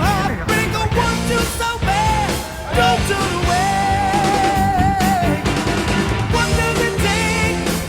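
Rock song with a singer holding long, wavering notes over guitar and drums.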